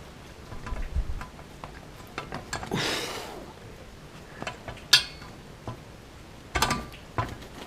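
Scattered metal clinks and knocks from tools and parts being handled while working on a dirt bike, with a short scraping rustle about three seconds in. A sharp clack comes about five seconds in, and a quick cluster of knocks near the end.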